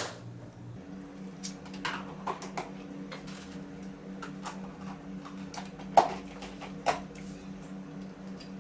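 Light clicks and knocks of kitchen utensils being handled, sharpest about six seconds in and again a second later, over a steady low hum.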